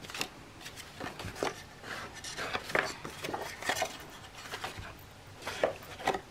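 Paper rustling and crinkling in irregular bursts as hands fold and handle journal pages, with small clicks and taps of materials on the work table.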